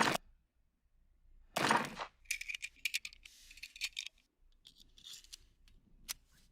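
Light metallic clicks and clacks of a restored Colt M1911 pistol being handled, a quick run of them about two seconds in, a few more later and one sharp click near the end, with two louder noisy bursts at the start and about a second and a half in.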